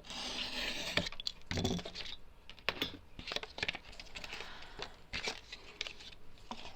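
Cardboard being cut down and handled: a rasping noise for about the first second, then a run of irregular crisp clicks and scrapes.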